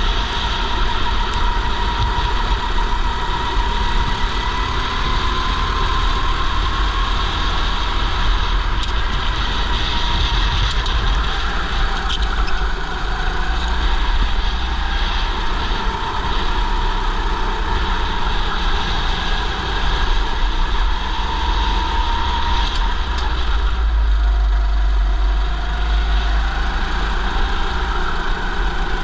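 Go-kart engine running under racing load, its pitch rising and falling as it speeds up and slows through the corners, over a heavy low rumble.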